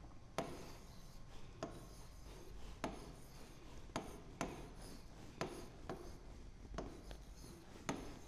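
Stylus writing on an interactive touchscreen display: a faint click each time the pen tip meets the screen, about one a second, with light rubbing between the clicks.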